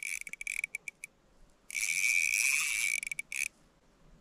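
Spinning reel's drag buzzing as a hooked fish runs and pulls line off: a few short stutters, then one long run of about a second and a half, and a brief last burst.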